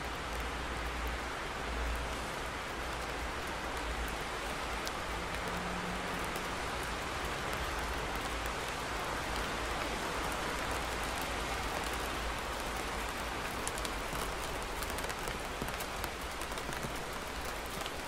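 Steady thunderstorm rain, an even hiss with a low rumble underneath that is strongest in the first few seconds. Sharper individual drop ticks stand out in the second half.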